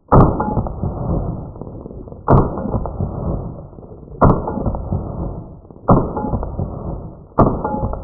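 Pistol shots fired one at a time at a slow, even pace, five in all, about one every one and a half to two seconds. Each shot is a sharp crack trailing off low, heard muffled with little treble.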